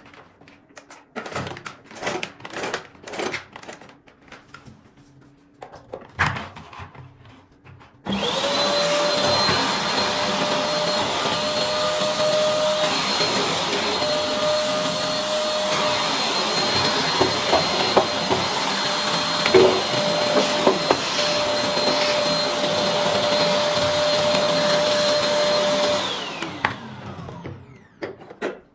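A 1600 W vacuum cleaner is switched on about eight seconds in, after a few clicks and knocks of handling. Its motor spins up to a steady high whine over the rush of suction, runs for about eighteen seconds, then is switched off and winds down, its pitch falling near the end.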